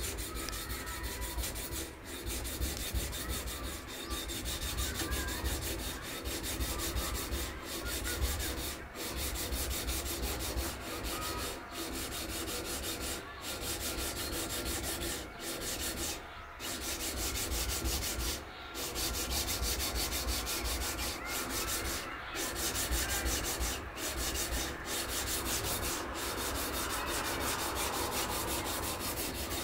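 Japanese gyuto kitchen knife being ground on a 400-grit sharpening stone, the steel rubbing back and forth over the stone with brief pauses every few seconds, as the blade road is worked to remove the coarser 200-grit scratches.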